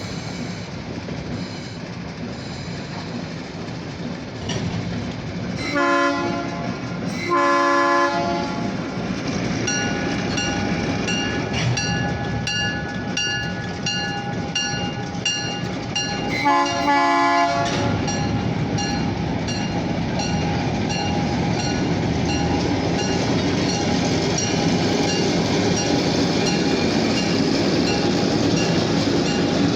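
Alco diesel locomotive approaching with its engine rumble growing louder, sounding its multi-note horn in two short blasts about six and eight seconds in and a longer one about seventeen seconds in. From about ten seconds in, a bell rings steadily about twice a second.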